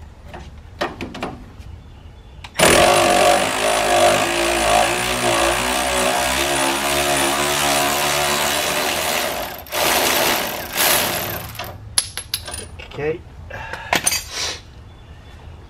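Cordless power tool running a socket on the upper nut of a sway bar end link, spinning the already broken-loose nut off. It runs in one long stretch of about seven seconds, then a shorter burst, followed by a few clicks of the socket and tool.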